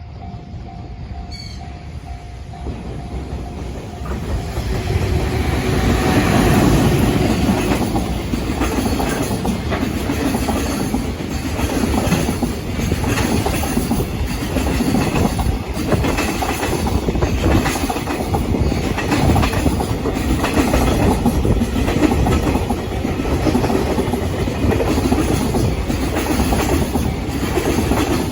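Container freight train's wagons rolling past, wheels clicking over the rail joints in a steady clatter. It grows louder over the first several seconds and then stays loud as the train picks up speed after crawling through a level crossing.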